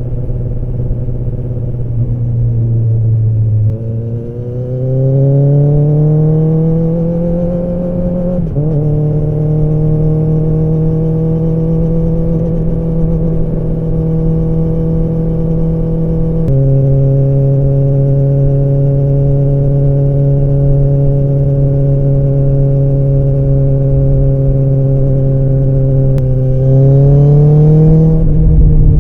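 Kawasaki ZX-10R inline-four, its exhaust echoing in a tunnel. The engine note climbs under acceleration about four seconds in, holds steady, then drops a step at a gear change around the middle. It climbs again near the end and falls away with another shift.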